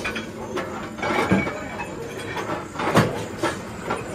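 Pillar drill drilling a mild steel truck wheel rim plate, with irregular metal clunks and knocks over the machine's hum. The loudest knock comes about three seconds in.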